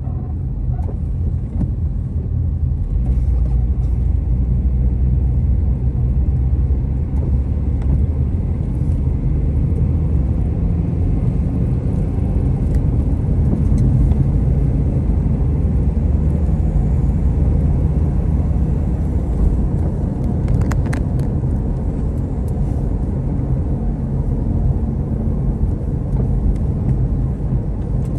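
Steady low rumble of a car driving on a wet road, engine and tyre noise heard from inside the cabin, with a couple of brief clicks about three-quarters of the way through.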